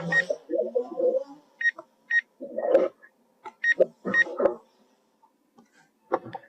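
Short electronic beeps from a handheld device, about six of them in uneven pairs over the first four or so seconds, among handling and rustling sounds.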